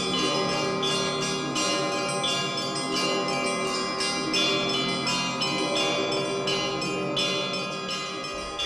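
Church bells ringing in a continuous peal, many bells of different pitches struck in quick succession and ringing on over one another.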